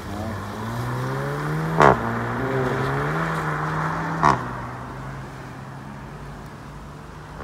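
Seat Leon Cupra hatchback accelerating hard, its engine note climbing and then dropping at each of two upshifts, each marked by a sharp loud crack about two and a half seconds apart. The engine then holds a steady note that slowly fades as the car pulls away.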